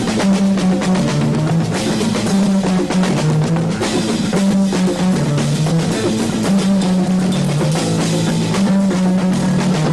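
Rock band jamming: a drum kit keeps a steady beat under electric guitar, while the bass repeats a short riff that steps between a few low notes about every two seconds.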